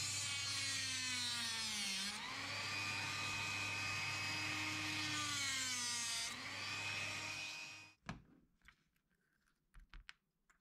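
Handheld rotary tool with a thin cutoff disc, running at a steady high whine while it cuts into a small capacitor's casing. Its pitch sags twice, about two seconds in and again near six seconds, as the disc bites into the casing, and the motor stops about eight seconds in, followed by a few faint clicks of handling.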